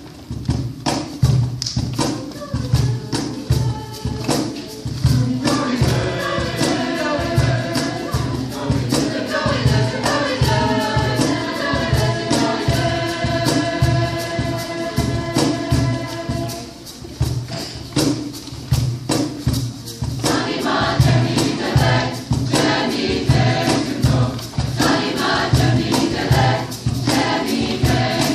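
Concert choir singing over a steady percussion beat. The beat runs alone at first, the voices come in about five seconds in, break off briefly about two-thirds of the way through, and then return.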